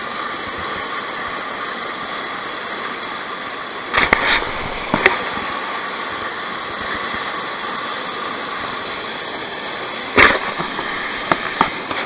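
Steady rush of a small waterfall pouring into a river pool, with a few sharp knocks about four seconds in and again near ten seconds.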